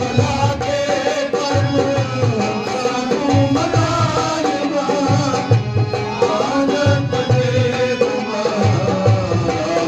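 Harmonium and dholak playing a devotional aarti melody: the harmonium's reeds hold and move through the tune over a steady dholak beat.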